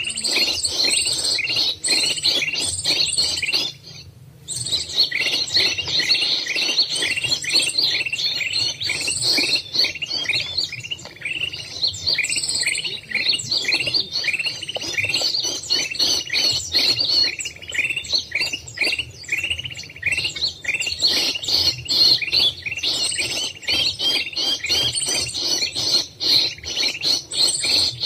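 Many small birds chirping rapidly and continuously, their calls overlapping, with a brief break about four seconds in.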